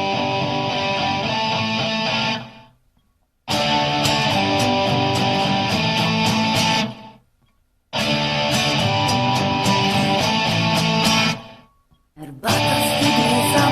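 Background music with guitar, in stretches of a few seconds broken by brief silences about every three and a half seconds.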